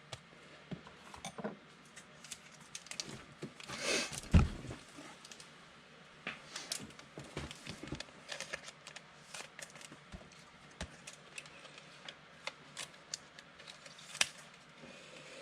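Trading cards being handled and sorted on a table: scattered light clicks and taps, with a louder rustle and thump about four seconds in.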